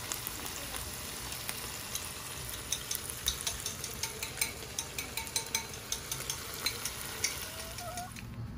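Bullfrog pieces, lemongrass and vegetables frying in oil in a nonstick pan on a gas burner: a steady sizzle scattered with crackling pops.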